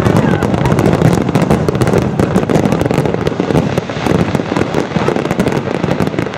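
Large fireworks display: a dense barrage of aerial shell bursts, many rapid overlapping bangs and crackles running together, easing slightly after about four seconds.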